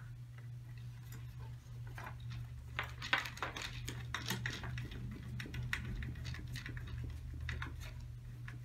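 Hand screwdriver driving a small machine screw into a metal mounting bracket: irregular small clicks and scrapes as the screw turns, over a steady low hum.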